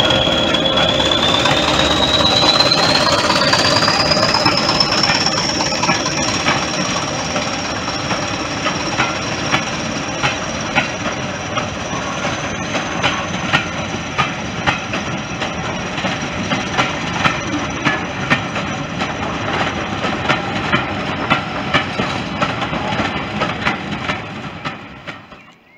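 English Electric Class 20 diesel locomotive passing at speed, its engine running hard with a high whistle that rises in pitch over the first few seconds and then holds. Then a run of coaches follows, their wheels clicking steadily over the rail joints, until the sound cuts off near the end.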